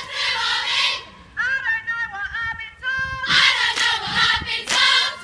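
A group of girls' high voices chanting a cheer together in short, loud calls, with bursts of shouting about a second in and again from about three seconds in.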